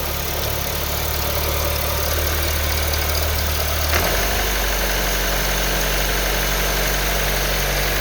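2012 Honda Civic's 1.8-litre four-cylinder engine idling in reverse with its automatic transmission engaged, a steady low hum with a click about four seconds in, after which the hum changes pitch. This is the rattle and vibration the owner hears whenever the car is put in reverse; he suspects it could be the serpentine belt.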